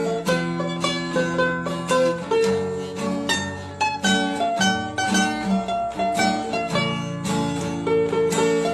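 Background music: a quick, bright plucked-string tune, mandolin- or guitar-like, with many short notes over a steady bass line.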